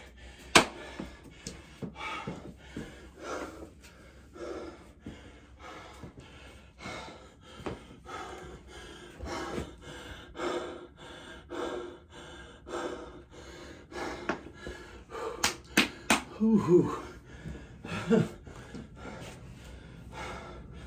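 A man breathing hard after exercise, with heavy breaths and pants about once a second. A sharp click about half a second in is the loudest sound.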